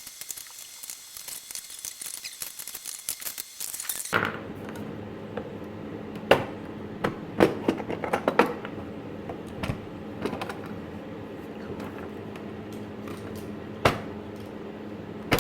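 Hand work on the aluminium skin of a kit-plane flaperon. A steady hiss runs for the first few seconds and stops abruptly. After that come about six sharp metallic clicks and snaps at uneven gaps, typical of rivets and Cleco fasteners being worked into the skin.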